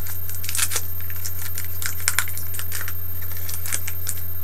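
Foil Pokémon booster pack wrapper crackling in sharp, irregular clicks as it is handled and torn open, over a steady low hum.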